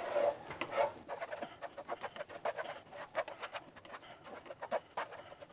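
Spatula stirring and scraping soft scrambled eggs around a frying pan: faint, irregular wet squelches and scrapes.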